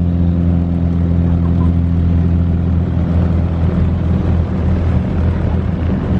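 An engine running steadily, a held low hum with overtones that turns rougher and less even about halfway through.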